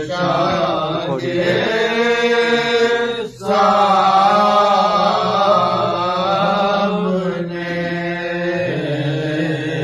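Voices chanting an Urdu noha (mourning elegy) in long, drawn-out held notes, with a brief break about three and a half seconds in.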